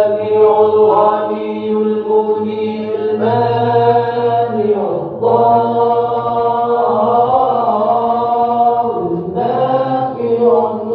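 Children's voices chanting a prayer in unison at morning assembly, in long held phrases with short breaks about five and nine seconds in.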